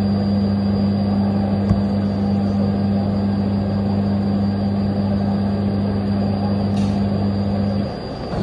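Takamaz XT-8MY CNC lathe running through its machining cycle: a steady low hum and a faint high whine that cut off shortly before the end, over a steady mechanical noise.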